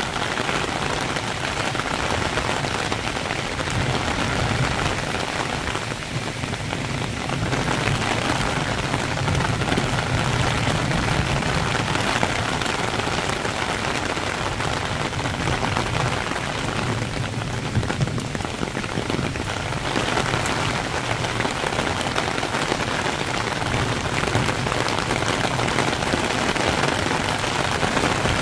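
Rain shower falling steadily on foliage and a wet paved path: an even, continuous patter.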